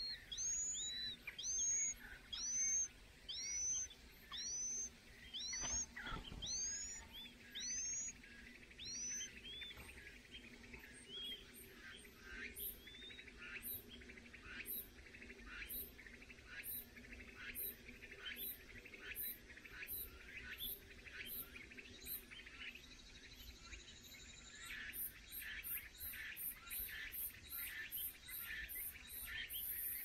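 Chinese hwamei nestlings calling: a run of clear, arching chirps, about one every two-thirds of a second, that fades away after about ten seconds. Later comes a quieter string of short, quick calls that speeds up near the end.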